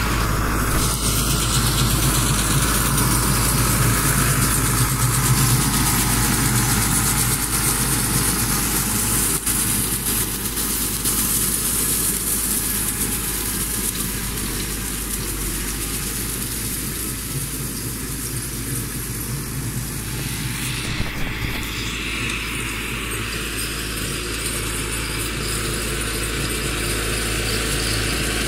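Massey Ferguson 385 tractor's four-cylinder diesel engine running steadily under load, with its rear cutter implement working through dry straw.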